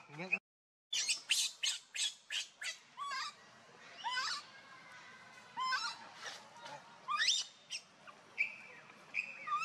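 High-pitched animal calls: a quick run of short, sharp chirps over the first couple of seconds, then several longer squeals that rise in pitch, spaced about a second apart.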